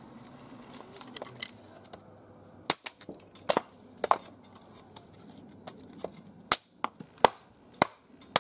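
BeaverCraft AX6 bushcraft hatchet splitting kindling on a wooden chopping block: about eight sharp, irregularly spaced chops, starting a little under three seconds in.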